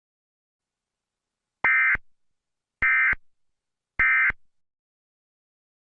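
Emergency Alert System end-of-message data tones: three short, identical bursts of warbling digital tone about a second apart, marking the end of the alert.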